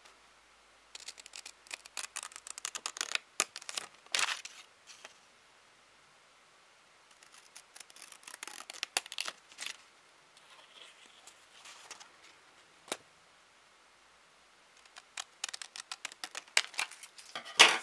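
Scissors cutting a sheet of printed paper along a line: several runs of quick snips with short pauses between, and a single snip in one of the pauses.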